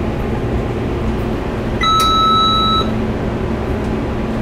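A single high-pitched electronic beep, about a second long, from the fryer's control panel, over a steady low background hum.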